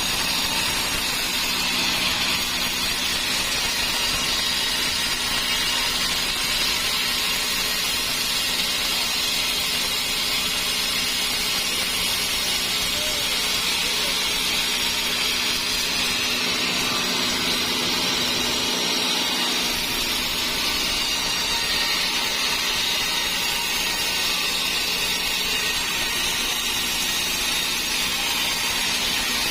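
Sawmill saw running steadily through dry teak wood, a constant mechanical hum under a loud high hiss that does not change.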